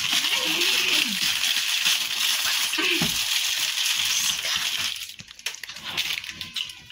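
Plastic bun wrappers crinkling as the buns are unwrapped by hand, a dense rustle that dies down to a few scattered rustles about five seconds in.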